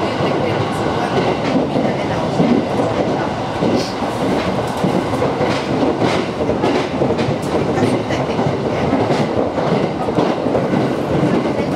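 Aoimori Railway 701-series electric train running at speed, heard from inside the passenger car: a steady rumble of wheels on rail, with irregular clicks as the wheels pass over the track.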